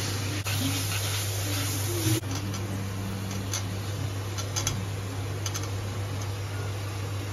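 Steady low hum with a hiss of food cooking in a steel kadai. The hiss is brighter while the gravy is stirred, and it changes abruptly about two seconds in. Later a few light clicks sound as fried potato pieces are dropped in by hand from a steel plate.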